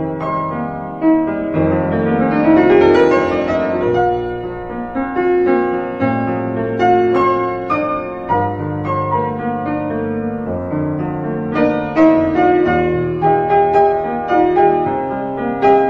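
Background piano music: held notes over a sustained bass, with a run of rising notes about two seconds in.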